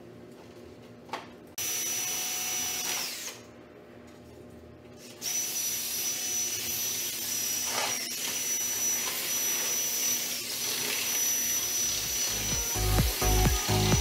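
Cordless drill running with a steady high whine, its bit against an e-bike's plastic handlebar cover: a short run about a second and a half in, then after a pause a longer continuous run from about five seconds in.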